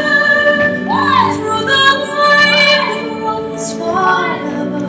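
Music with a woman singing over sustained instrumental backing.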